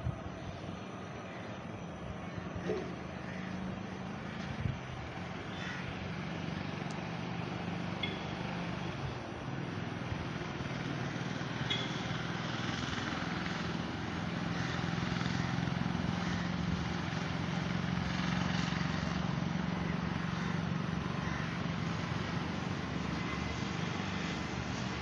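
A steady, distant engine drone over outdoor background noise, swelling a little past the middle, with a few faint short chirps.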